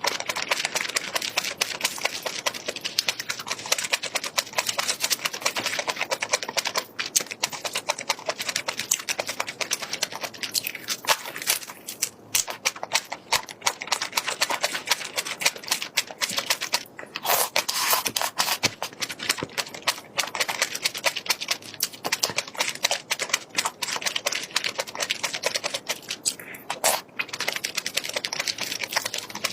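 Crunchy chewing: a dense run of rapid crackling crunches, pausing briefly a few times.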